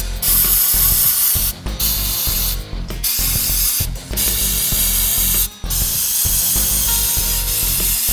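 Aerosol cleaner can spraying onto a fuel injector rail: about five hissing bursts with brief pauses between them, the last one held longest.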